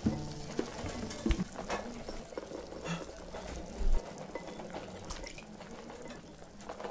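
Foley liquid sounds for a pot of soup: water sloshing and trickling, with scattered small clicks and a soft low thump about a second in and another near four seconds.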